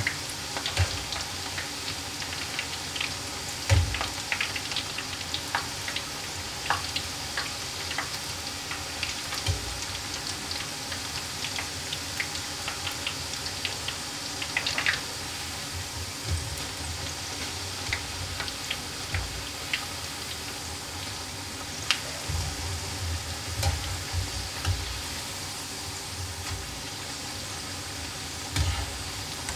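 Lachha pakoras (battered onion fritters) deep-frying in hot ghee: a steady sizzle with scattered crackles and pops, and a few soft low knocks.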